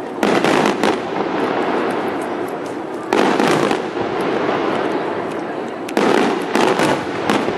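Aerial firework shells bursting: loud bangs about a second in, again around three seconds in, and a quick run of several near the end. Between them is a continuous din of further bursts.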